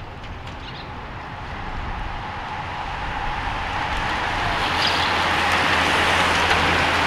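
A large pack of racing road bikes approaching and sweeping past close by: a rushing whoosh of tyres on asphalt and moving air that grows steadily louder, peaking near the end.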